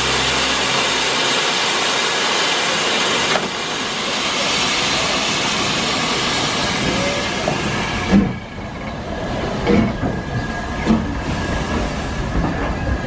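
Steam locomotive hissing loudly as steam escapes from its cylinder drain cocks, then moving off with a few heavy exhaust chuffs spaced a second or so apart, starting about eight seconds in.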